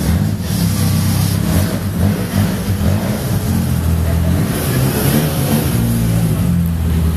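Car engine running close by, a steady low engine note that shifts slightly in pitch.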